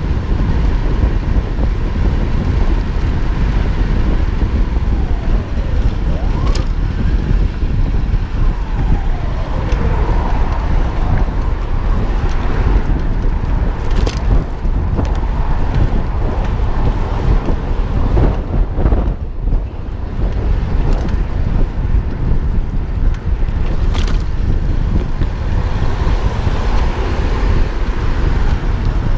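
Heavy wind noise buffeting the microphone of a cyclist riding at speed, with road traffic passing, including vehicles whose pitch falls as they go by.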